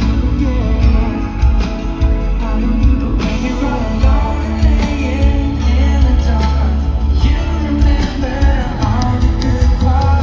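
Live pop band music with singing over heavy, steady bass.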